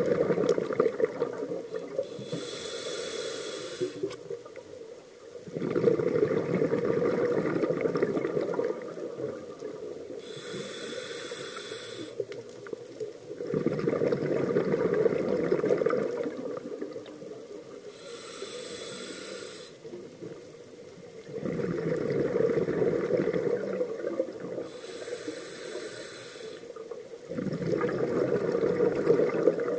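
Scuba diver breathing through a regulator underwater: a high hiss on each inhale, followed by a longer bubbling of exhaled air, about one breath every eight seconds, four times over.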